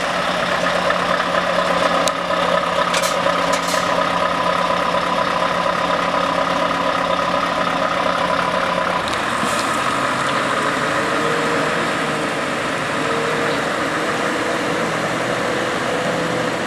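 Scania S580's 16-litre V8 diesel running at low revs as the tractor unit moves slowly. Its note is steady, then shifts to a different pitch about halfway through, with a few brief sharp noises about two to four seconds in.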